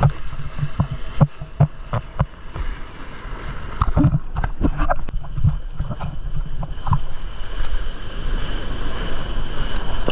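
Seawater splashing and sloshing in the surf, with irregular sharp splashes over a low rumble of wind on the microphone.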